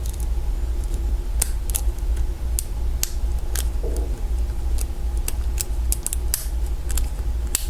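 A hook pick working the pin stacks of a Kwikset mortise lock cylinder under tension: irregular small metallic clicks as pins are lifted and set, over a steady low hum.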